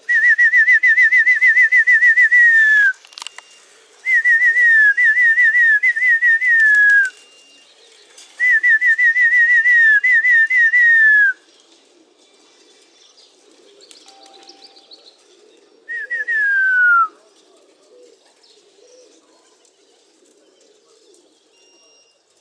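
A person whistling a warbling trill to call racing pigeons into the loft. The whistle comes in four phrases, each ending in a falling glide, and the last one is short.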